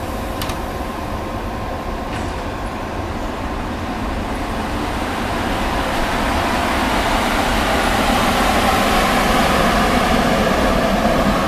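ChS2T electric locomotive, a Czechoslovak-built six-axle DC passenger engine, moving slowly on its own without its train: a steady mechanical hum with a faint whine, growing gradually louder.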